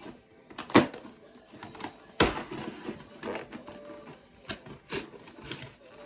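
Cardboard LEGO set box being opened and handled: scattered sharp clicks and knocks, with a louder brief rasping noise about two seconds in.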